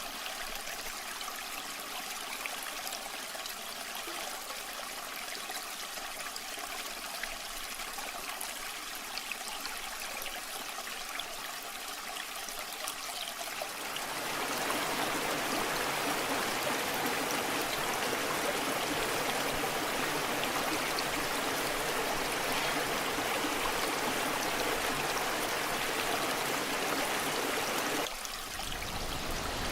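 Waterfall water running steadily. It grows louder and fuller about halfway through, then dips briefly just before the end.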